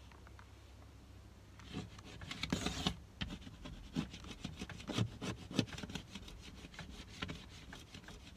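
Razor blade scraping on car window glass in short, quick rasping strokes, starting about two seconds in, lifting window tint film and residue softened by a blowtorch.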